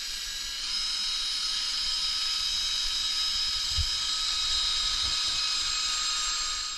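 Cordless drill running with a wire brush wheel in its chuck: a steady high motor whine that gets louder about a second in.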